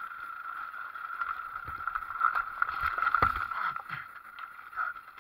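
Enduro motorcycle going down on a forest trail: the engine runs over a steady high whine, then heavy thumps and jolts as the bike and rider fall into the leaves about two to three seconds in.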